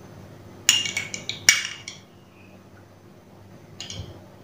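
A spatula knocking and scraping against a nonstick frying pan as a lump of desi ghee is pushed off into it: a quick cluster of clicks and scrapes about a second in, and a few softer knocks near the end.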